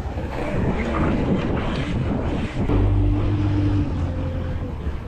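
Wind buffeting a bike-mounted microphone over the rumble of street traffic while riding. In the second half a steady low engine hum comes in for about a second.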